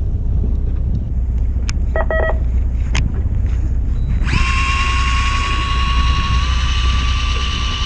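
A small electric motor starts whining about halfway through and runs on at a steady pitch, over the low steady rumble of the fishing boat's engine. Before it there is a brief short tone and a single sharp click.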